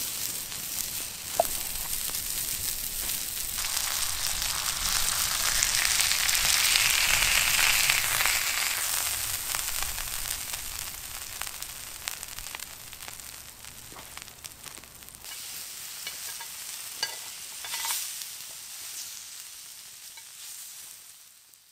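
Food sizzling in a hot grill pan: a lamb burger patty frying as it is pressed flat with a glass. The sizzle swells for a few seconds, then dies away near the end, with a few light clicks and taps.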